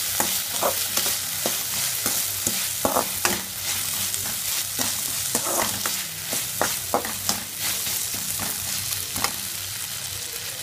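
Chopped onions, green chillies and whole spices frying in oil with ginger-garlic paste in a metal kadai, a steady sizzle. A ladle scrapes and clicks against the pan as the mixture is stirred, and the stirring strokes thin out in the second half while the sizzle goes on.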